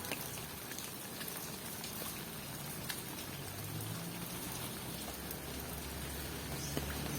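Steady rain falling, with scattered single drops ticking close by. A faint low hum joins in during the second half.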